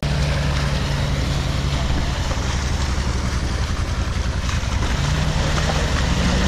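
Side-by-side UTV engine running steadily close to the microphone, its pitch stepping up slightly about five seconds in.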